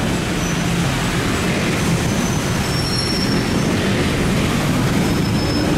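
Road traffic on a rain-soaked street: car tyres hissing through water on the road over the low running of engines. A few brief high-pitched squeaks come in about three seconds in and again near the end.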